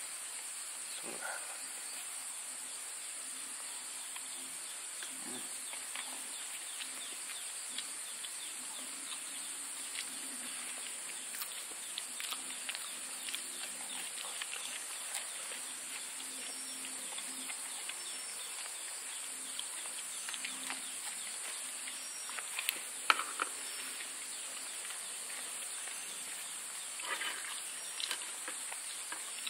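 Steady, high-pitched insect chorus. Scattered light clicks and clinks of a spoon against a bowl come over it, the sharpest a little past the middle.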